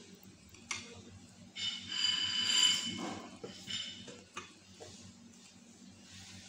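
Banana pieces being put into a blender jar: soft knocks and clinks against the jar, with a louder ringing rattle lasting about a second and a half, around two seconds in.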